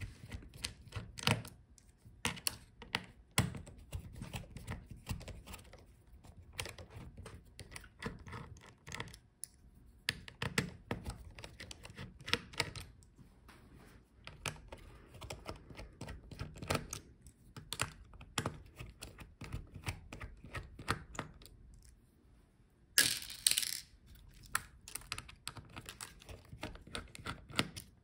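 Small precision screwdriver backing out the display hinge screws on an Asus ROG Zephyrus G14 laptop's metal chassis: a scatter of light clicks, ticks and taps of metal on metal, with a louder burst of noise lasting about a second near the end.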